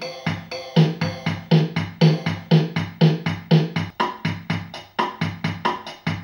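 Casio DG-20 MIDI guitar's built-in drum-machine rhythm playing a steady beat. Low kick-like thumps come about twice a second with lighter hits between, and the pattern shifts about four seconds in as its tempo is set.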